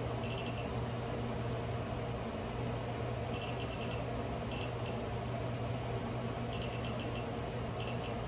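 Digital DC bench power supply beeping as its adjustment knob is turned step by step to raise the voltage: short, high pips in quick runs of four or five, several times over. A steady low hum of the fume hood's fan runs underneath.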